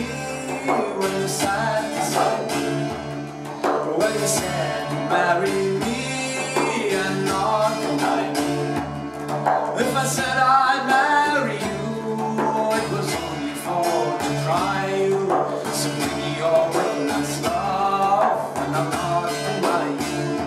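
An open-tuned Irish bouzouki strummed and an Arabic frame drum struck with the hands, playing a Celtic folk tune with a fast, busy drum rhythm. A voice sings over them at times.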